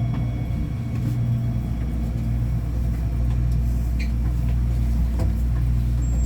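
Interior rumble of a Ui–Sinseol Line driverless light-rail car running: a steady low drone with faint rattles and no clear changes. A faint high beeping starts right at the end.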